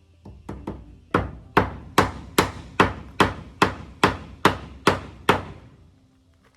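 A hammer driving a nail into wood: two light setting taps, then about ten hard, evenly spaced blows at roughly two and a half a second.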